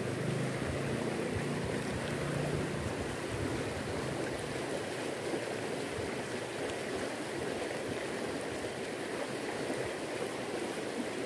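Fast-flowing river current rushing steadily, with a faint low hum in the first few seconds.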